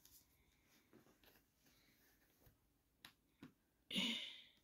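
Faint handling of a plastic LEGO minifigure, with small clicks and two sharp clicks about three seconds in, then a louder brief noise near the end.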